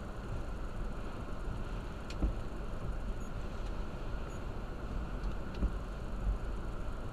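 Storm wind and rain rushing steadily around a car, heard from inside the cabin, with a few short low thumps.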